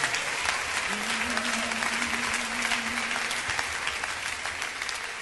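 A crowd applauding, the clapping gradually fading toward the end. One voice calls out a single long held note in the first half.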